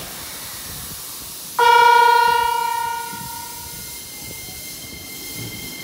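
Electronic horn of a Shin-Keisei N800 series electric train: one "myaan" blast about a second and a half in, a single steady chord that starts suddenly and fades out over about two seconds, sounded as the train departs. A faint steady high tone follows.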